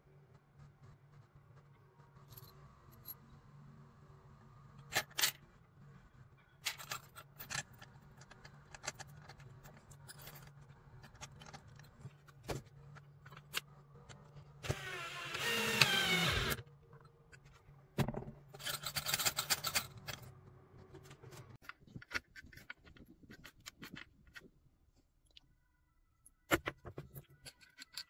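Clicks and light rattling of small metal parts being handled, then a power drill driving a wood screw into wood for about two seconds, its pitch dropping near the end. More metallic clicking and rattling follows.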